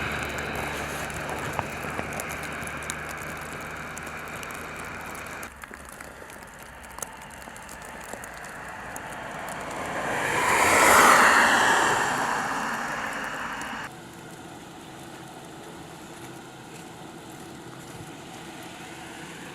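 Steady outdoor noise of light wind, broken by abrupt cuts, with a vehicle passing: its sound swells to its loudest about eleven seconds in, then fades.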